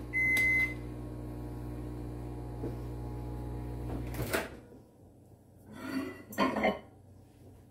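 A kitchen oven beeps to signal that it has reached its preheat temperature, one long tone near the start. Under it a kitchen appliance hums steadily and cuts off with a click about four seconds in, followed by a couple of soft knocks.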